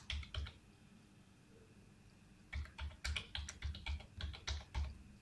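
Keystrokes on a computer keyboard as a phone number is typed in: a few strokes at the start, then a quick run of about a dozen strokes in the second half.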